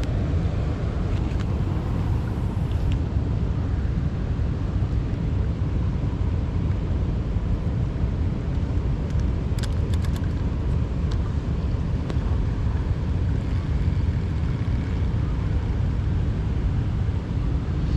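Steady low roar of water pouring over a spillway, an even rushing rumble that does not let up.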